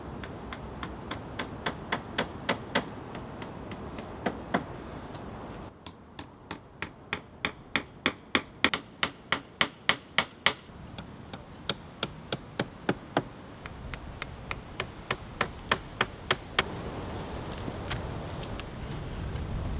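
Hand hammer striking a wooden board in quick, even taps, about two to three a second, in several runs; the strikes stop a little before the end.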